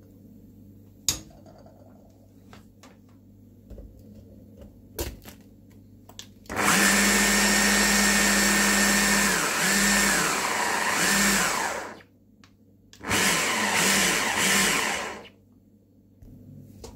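Electric blender grinding cookies into crumbs, running for about five seconds with its motor pitch dipping a few times under the load, then a second shorter burst of about two seconds. A couple of light knocks come before it starts.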